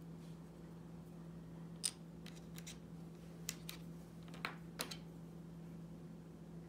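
A scatter of light clicks and taps as small miniature-kit pieces and metal tools are picked up and set down on a cutting mat. The clicks come between about two and five seconds in, the sharpest near two seconds, over a steady low electrical hum.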